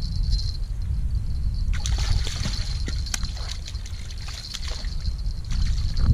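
A hooked threespot catfish thrashing and splashing at the surface of shallow water as it is drawn in to the bank, a run of splashes from about two seconds in until about five seconds in, over a steady low rumble.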